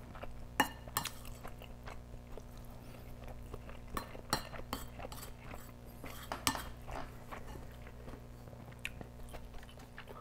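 A wooden spoon scraping and tapping on a plate as kimchi fried rice is scooped up, with close-miked chewing in between: a scatter of short clicks and scrapes, a few louder ones about half a second in and around four and six and a half seconds in.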